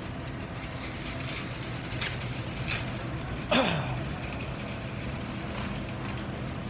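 Grocery-store background hum, steady and low, of the kind that refrigerated display cases give off, with a few faint clicks. About three and a half seconds in, a brief sound falls in pitch and is the loudest thing heard.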